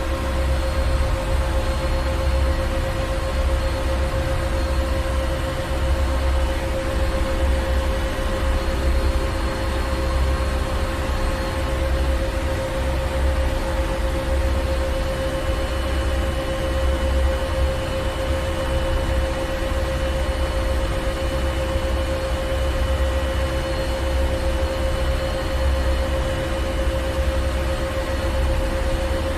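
Ship's engine room machinery running steadily: a deep, pulsing low throb with a constant hum and a haze of machine noise above it.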